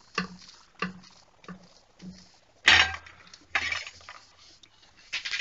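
A spatula scraping and knocking against a kadhai while stirring sticky jaggery-coated puffed rice. There are a few short light clinks at first, then louder, longer scrapes around the middle and again at the end.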